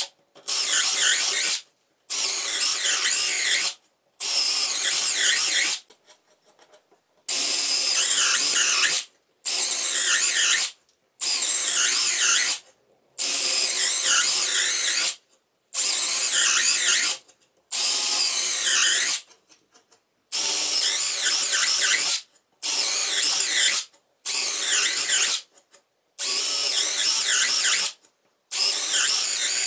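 Parkside Performance 12V brushless cordless drill boring a series of holes into wood. Each hole is one short run of about one to two seconds, followed by a brief pause, more than a dozen times in a row. Around six seconds in there is a longer pause of about a second and a half with a few light clicks.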